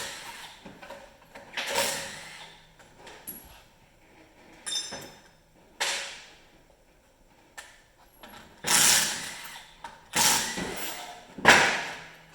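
Tools at work taking apart a Polaris 680 triple snowmobile engine: a handful of short, sharp mechanical bursts and clanks at irregular intervals, the loudest near the end, with a brief metallic ring about five seconds in.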